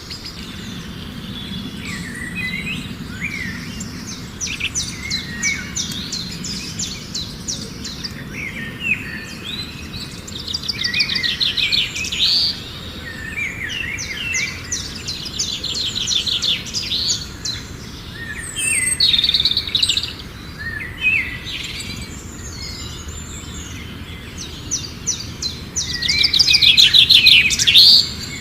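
Several songbirds chirping and singing, with repeated rapid trills between short chirps; the loudest trill comes near the end. A steady low background rumble runs underneath.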